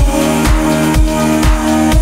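Electronic dance music with a steady four-on-the-floor kick drum, about two beats a second, under sustained synth notes.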